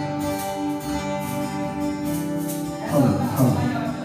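Instrumental music between sung lines: held chords with guitar, breaking into a louder, busier passage about three seconds in.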